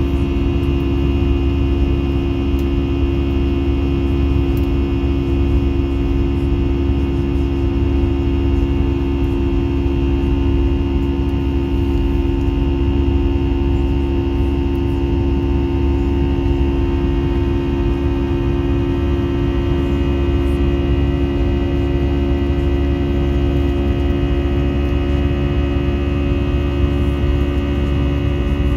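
Steady cabin drone of an Airbus A320 in flight: engine and airflow noise with a low hum and a few steady tones over it.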